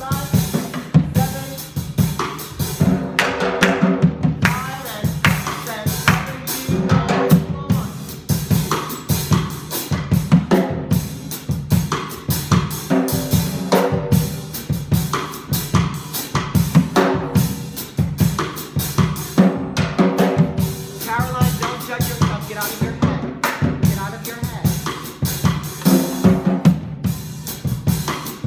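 Music with a steady drum-kit beat and a pitched melody over it.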